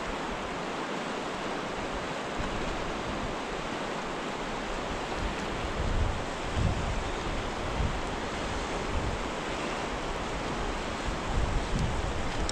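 River current flowing steadily over rocks in choppy water, with low wind buffeting on the microphone a few times.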